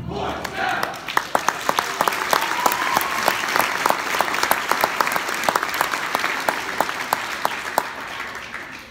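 Audience applauding in an auditorium, a dense patter of clapping that builds up in the first second and dies away near the end.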